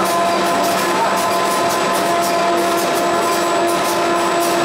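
YC1650-5C flexographic printing press running at speed: a steady mechanical din with several constant hum tones, unchanging throughout.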